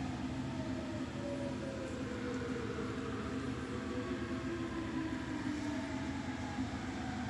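Haas CNC vertical mill running under test after a servo amplifier repair, its spindle head travelling up on the Z axis. A steady machine hum, with a fainter whine that falls slowly in pitch.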